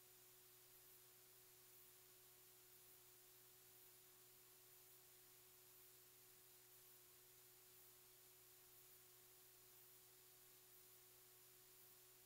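Near silence: a steady faint hiss with a low constant hum, and no distinct sound event.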